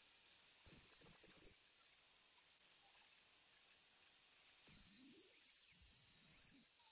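Trim router spindle on a homemade wooden CNC machine running with a steady high whine while its 3 mm end mill carves lettering into a block of wood. Faint low rumbles from the cut come about a second in and again near the end.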